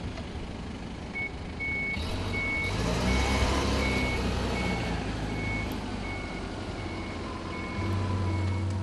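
Toyota torque-converter forklift reversing: its back-up alarm beeps steadily, about twice a second, over the engine, which picks up speed a couple of seconds in as the accelerator is pressed to back away, then settles.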